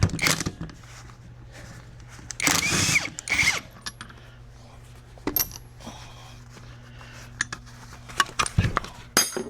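Tool work on an alternator's pulley nut: a short burst of tool noise at the start and a longer one a couple of seconds in, then scattered metal clicks and a quick run of clicks near the end, over a steady low hum.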